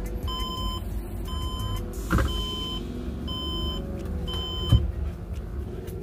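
HP Compaq 8100 Elite motherboard speaker beeping five times, about once a second, each a steady high-pitched beep: HP's beep code for a pre-video memory error. A sharp click comes during the last beep.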